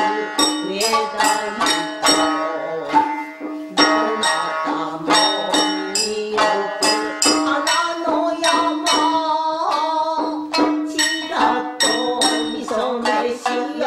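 Traditional Japanese music: a shamisen plucking a quick, steady run of notes under a sung melody.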